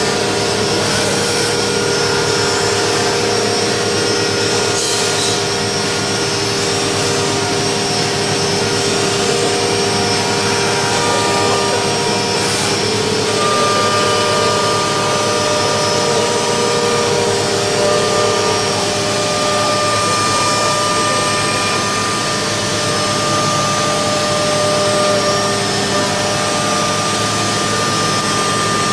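Mazak VTC 300C CNC vertical machining center running a cut: a steady machine noise with several whining tones that change pitch about 13 and 18 seconds in, and a few brief hisses.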